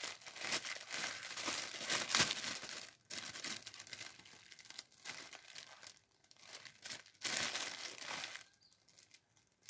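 Clear plastic packaging bag crinkling and rustling in irregular bursts as a T-shirt is pulled out of it, busiest at the start and again about seven seconds in, then dying down near the end.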